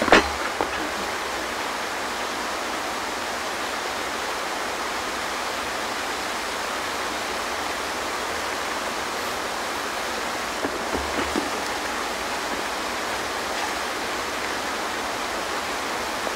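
A steady, even hiss fills the whole stretch, with a sharp knock and rustle right at the start and a few faint knocks around eleven seconds in.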